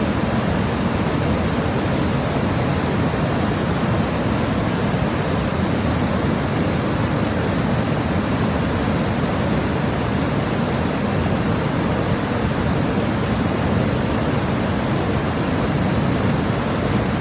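River water rushing over rocks, a steady, unbroken roar with no changes.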